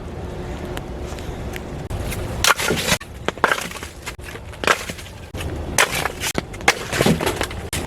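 Wood being broken up for kindling: irregular crunching and cracking strokes from about two seconds in, over a steady low rumble of wind noise.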